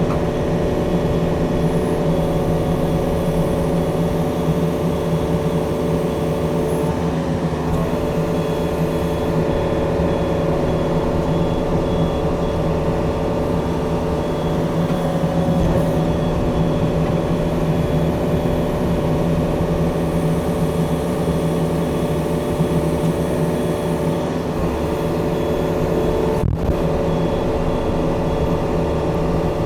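Diesel engine of a Yanmar mini excavator running steadily as the machine tracks into soft, wet mud.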